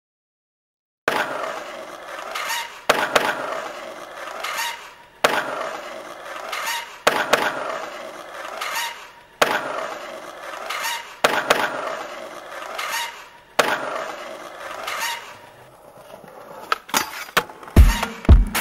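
Skateboard clacking down on pavement and its wheels rolling, repeating every couple of seconds with some clacks in quick pairs. A deep kick-drum beat comes in near the end as the music starts.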